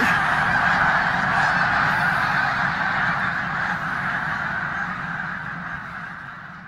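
A dense chorus of snow geese calling from a huge flock in flight: a continuous mass of overlapping honks, fading away toward the end.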